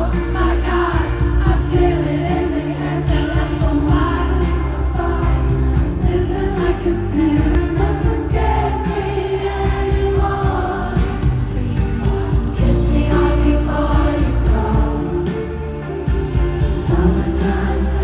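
Music with singing: a slow pop song with sustained, choir-like vocals.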